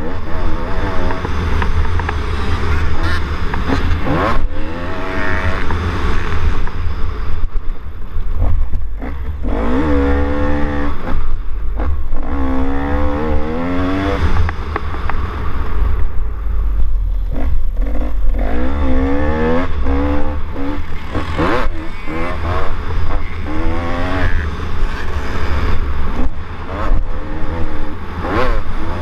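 Racing quad (ATV) engine revving up and down over and over as it is ridden hard along a rough dirt track, over a heavy, constant low rumble of the jolting ride on the bike-mounted camera.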